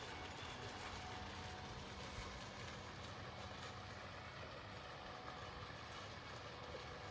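Steady low mechanical hum, like an engine or motor idling, with a few faint steady tones in it.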